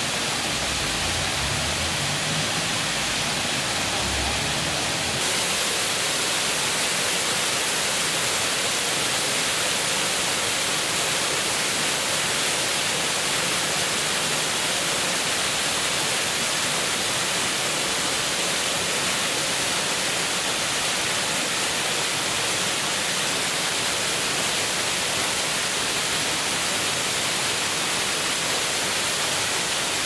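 Small waterfall splashing down over rocks: a steady, even rushing hiss.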